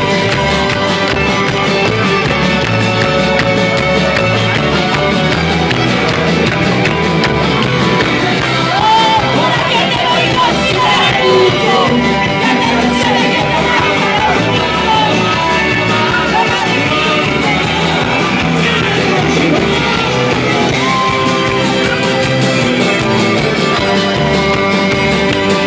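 Live rock band playing loudly, with electric guitars, drums and keyboards and a singing voice over them, heard from within the audience. Near the start the crowd claps along overhead.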